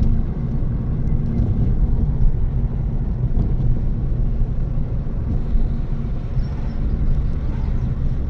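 Steady low rumble heard inside a moving car's cabin: road and engine noise while driving.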